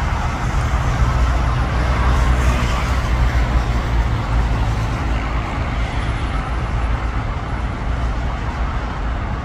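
A train pulling out of the station and running away along the track: a steady low rumble that slowly fades.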